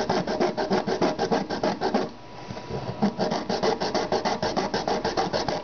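Hacksaw blade sawing through the plastic housing of a Sawyer water filter in rapid back-and-forth strokes, about six a second, with a pause of about a second partway through.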